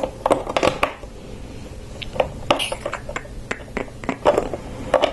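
Plastic Lego pieces being handled and pressed onto a Lego plate: a string of irregular sharp clicks and taps.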